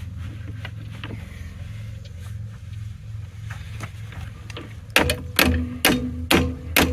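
Hammer blows on steel, about two a second and each ringing briefly, starting about five seconds in over a steady low hum. The hammer is driving a tight-fitting driveline piece onto its shaft.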